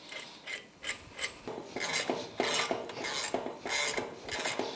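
A socket ratchet turning the drive nut of a blind bearing puller: a run of short, rasping ratchet strokes, repeated evenly and stronger from about a second and a half in, as the puller draws a swingarm bearing out.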